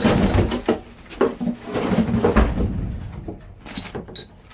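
Handling of an engine's shipping packaging: irregular knocks, scrapes and rustles, with a heavier thud about halfway through.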